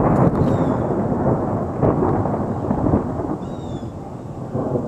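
Thunder rolling on without a break: a constant low rumble and roar, swelling and easing but never stopping.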